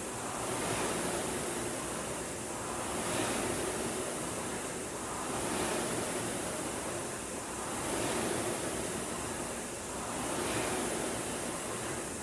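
Concept2 indoor rower's air-resistance flywheel whooshing, surging with each drive and easing on the recovery. The surges come about every two and a half seconds, five of them, a steady rate of about 24 strokes a minute.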